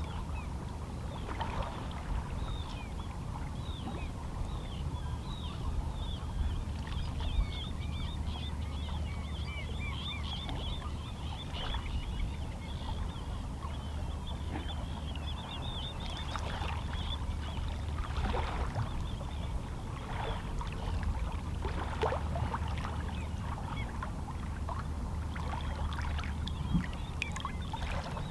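Calm sea: small waves lapping and splashing against shoreline rocks over a steady low rumble of water. Seabirds call in the distance with strings of quick chirps, busiest in the first half.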